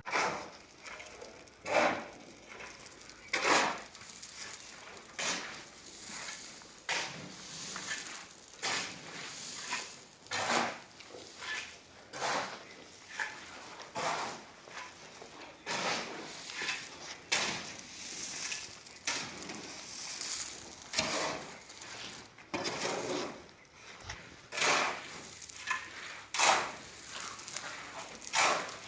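Repeated scraping and knocking strokes, roughly one every one to two seconds, each with a gritty rasp, like a hard tool working against a rough surface.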